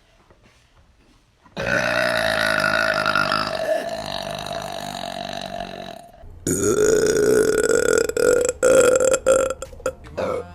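A woman burping loudly: one long, drawn-out burp of about four and a half seconds starting about a second and a half in, then after a short pause a second long burp that breaks up into short choppy pieces near the end.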